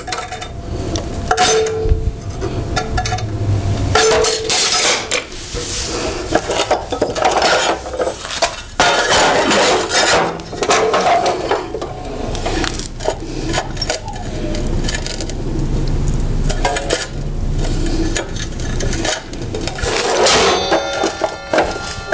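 Steel frame stock clanking and scraping as it is handled and clamped at a metal-cutting chop saw: a run of irregular metallic clinks and knocks, with a ringing metallic note near the end.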